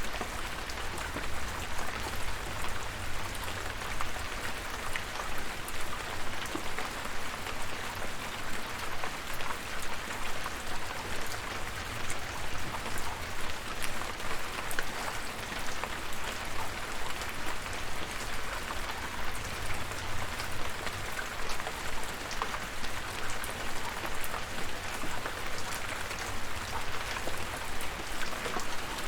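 Steady rain falling, a constant hiss with many individual drops ticking sharply through it and a faint low rumble underneath.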